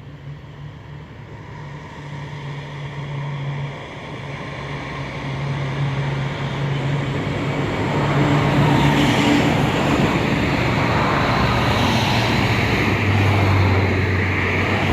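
Cars driving past close by on the mountain highway: engine hum and tyre noise grow louder over the first eight seconds and stay loud, with a deeper engine hum about thirteen seconds in.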